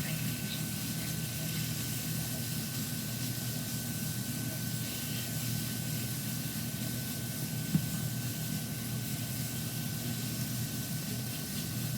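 Ground chicken cooking in a pan on the stove: a steady sizzling hiss over a low hum, with one short knock about eight seconds in.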